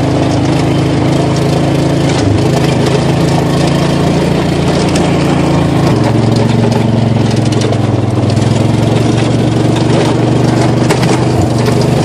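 Golf cart engine running steadily as the cart drives along, its note shifting slightly lower about halfway through.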